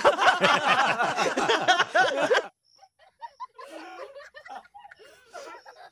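Loud laughter, a quick run of repeated 'ha' pulses that cuts off suddenly about two and a half seconds in, followed by quieter scattered laughing and voices.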